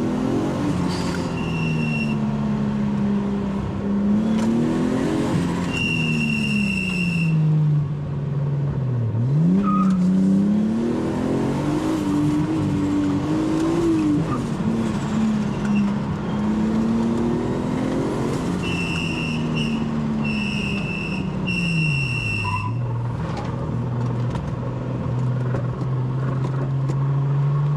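Nissan Skyline GT-T's RB25 Neo turbocharged inline-six heard from inside the car. It revs up and drops back several times through the gears, then settles to a steady low-rev run near the end. A high steady squeal comes and goes in short stretches while the car slows.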